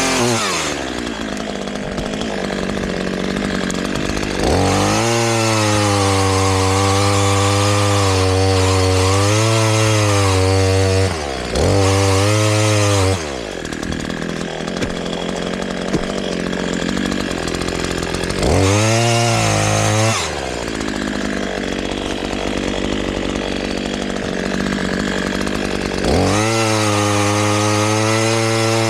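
Gasoline chainsaw cutting through a sassafras windfall: the engine is throttled up four times, its pitch wavering as the chain bites into the wood, and drops back to idle between cuts.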